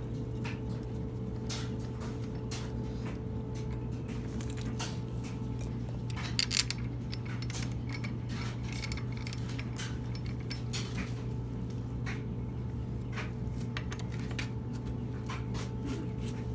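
Scattered light metallic clinks and taps of hand tools and BMX parts being handled, over a steady low hum. A louder cluster of clinks comes about six and a half seconds in.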